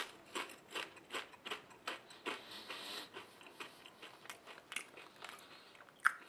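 Someone chewing thin potato chips with the mouth closed: a steady run of soft crunches, about two or three a second, getting fainter as the chip is chewed down. A brief sharper sound comes near the end.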